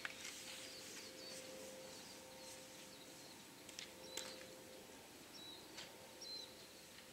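A handful of short, high bird chirps scattered over quiet outdoor background, the loudest about four seconds in, with a faint steady hum underneath.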